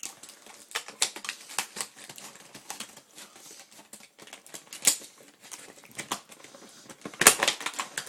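Hard plastic packaging being cut with scissors and pulled apart: irregular snips, clicks and crinkles, with a louder flurry of handling near the end.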